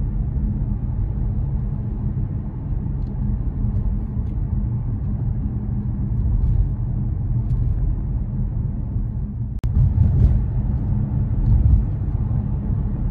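Road and engine noise inside a moving car's cabin: a steady low rumble. About ten seconds in there is one sharp click with a brief dip, and the rumble runs a little louder after it.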